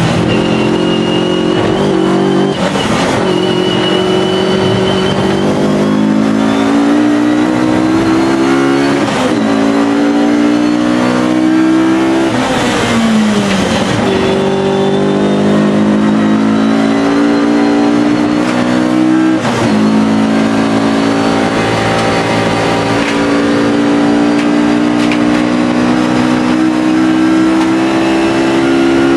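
Alfa Romeo race car engine at full throttle. Its pitch climbs steadily through each gear and drops sharply at each upshift, several times. About twelve seconds in, the revs fall for a couple of seconds, then climb again.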